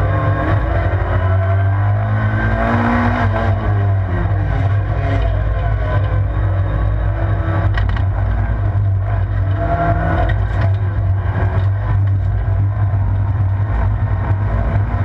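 Vauxhall Corsa rallycross car's engine under full racing load, heard from inside the stripped cabin, its revs rising and falling repeatedly through gear changes and corners over a heavy low rumble. A few sharp knocks come through a few seconds in.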